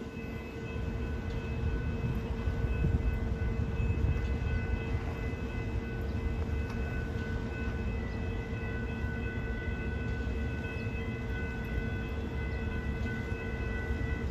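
Brightline passenger train running past a grade crossing: a steady low rumble, with a steady high tone held throughout.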